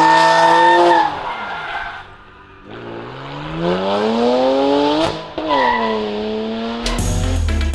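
BMW 335i E92's turbocharged straight-six with a catless exhaust. It is held at high revs, drops off about a second in, then climbs in one long rise to a peak about five seconds in, falls back and settles. Music with a heavy beat starts near the end.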